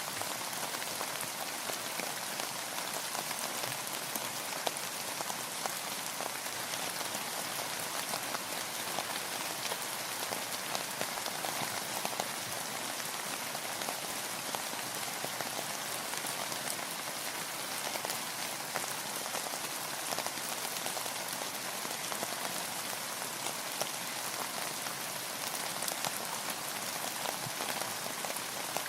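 Steady rain falling, a dense, even patter of many small drops hitting a surface with no pauses or swells.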